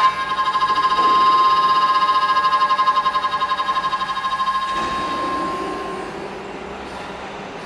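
CNC door lock drilling machine running: a steady high whine with a fast flutter, which fades about five seconds in, leaving a lower, rougher machine noise.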